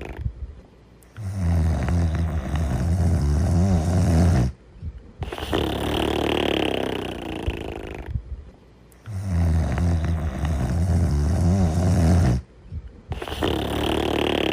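Cartoon snoring: a deep, rattling snore followed by a higher, airy breath, the cycle coming round twice with short pauses between.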